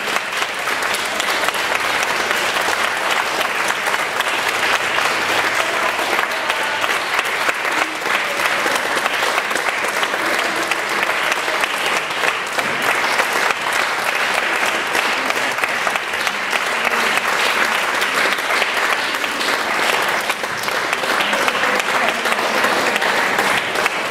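Audience applauding: many hands clapping in a dense, steady patter that holds at one level throughout.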